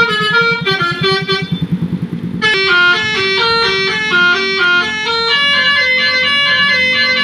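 Digital electric basuri melody horn (300 W) playing a tune of stepped, organ-like notes. About two and a half seconds in it switches with a click to a brighter melody, and a low throb heard under the first part drops away.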